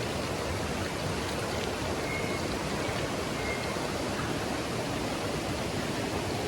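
Steady rushing of fast-flowing mountain water in a gorge stream.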